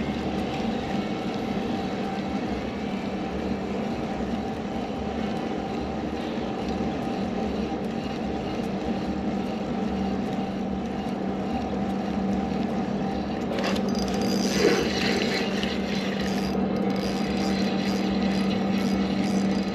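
Boat motor running steadily, with a rush of water hiss coming up about two-thirds of the way through.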